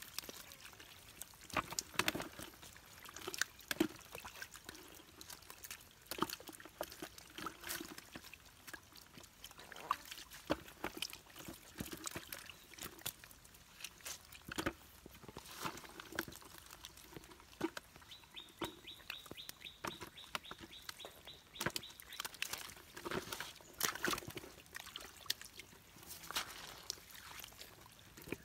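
Irregular wet splashing, slapping and squelching in shallow muddy water as catfish are grabbed by hand and thrash in the mud. A high, rapidly pulsing call sounds for about four seconds past the middle.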